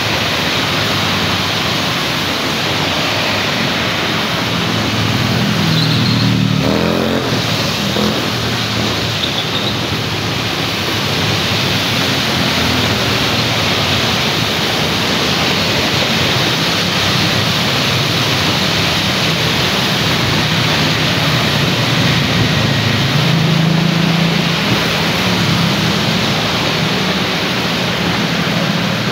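Steady rain on a wet street, with cars and motorbikes passing and their tyres hissing through the water on the road. Engines swell in and out as vehicles go by, most clearly about six seconds in and again near twenty-four seconds.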